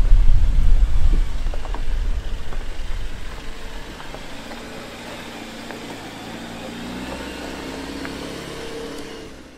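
Jeep Wrangler Rubicon engine pulling at low revs as the 4x4 crawls over rocks. A loud low rumble dominates the first few seconds and fades, leaving a steady engine note that rises slightly near the end.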